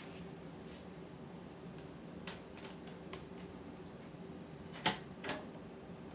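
Light clicks and taps from handling a laptop's replacement screen and its parts, with two sharper clicks near the end, over a faint steady hum.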